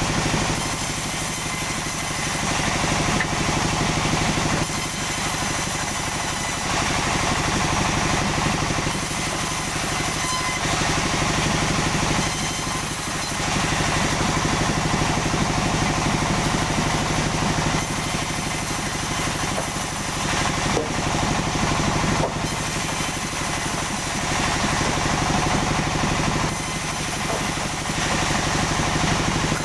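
Sawmill's engine running steadily, with a higher hiss that swells and eases every couple of seconds.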